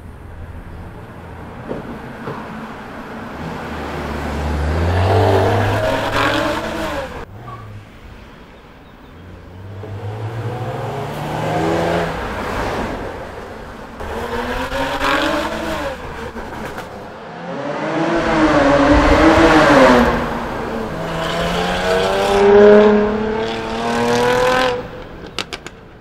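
Jaguar F-Type S's supercharged V6 accelerating hard about five times over, each time a rising engine note that climbs and then falls away. One run cuts off abruptly about seven seconds in.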